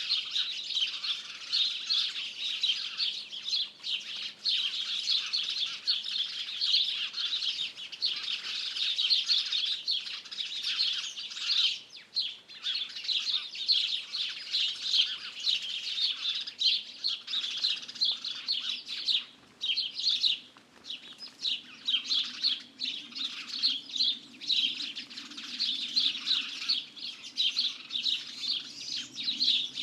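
A dense chorus of many small birds chirping and twittering, continuous, with brief lulls about twelve seconds in and again around twenty seconds.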